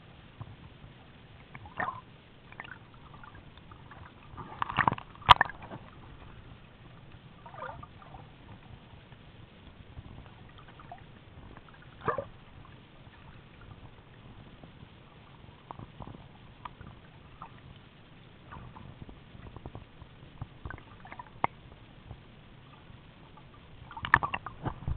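Underwater sound heard through an action camera's waterproof housing, 2 m down: a low, steady water rush with scattered clicks and gurgling sloshes, loudest in a cluster about five seconds in and again near the end.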